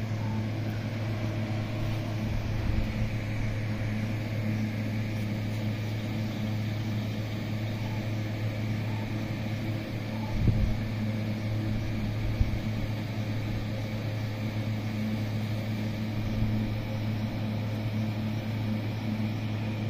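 Steady machine hum, a low drone with several fixed tones above it, unchanging throughout. A couple of dull low thumps come through about ten and twelve seconds in.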